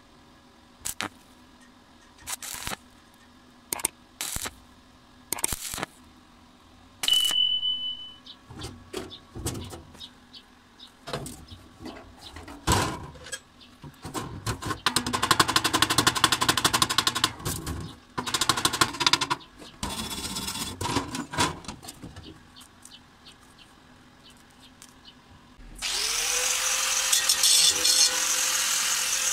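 Stick welding arc struck in short separate bursts, filling a hole in a steel plate a bead at a time. Then a chipping hammer knocks and scrapes slag off the weld in irregular taps and fast rattling runs. About 26 s in, an angle grinder with a cut-off disc spins up and runs steadily.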